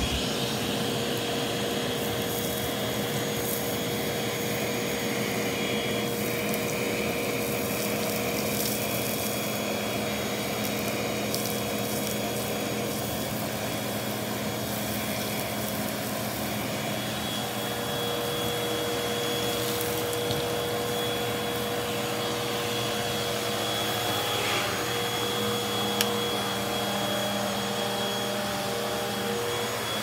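Hoover vacuum cleaner running steadily with a constant whine, its hose nozzle sucking debris up off the carpet. A single sharp click about 26 seconds in.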